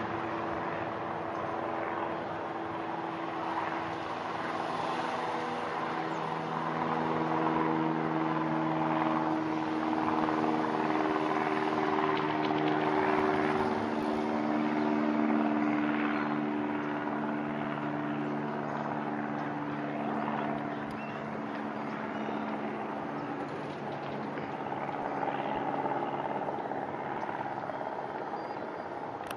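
Low-flying aircraft passing overhead: a steady engine drone made of several pitched tones over a broad rumble. It swells to its loudest around the middle and fades away over the last several seconds.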